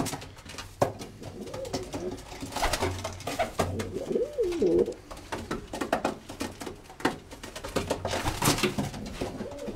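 Racing pigeons cooing, with one clear rising-and-falling coo about four and a half seconds in. Scattered light taps and rustles run alongside it.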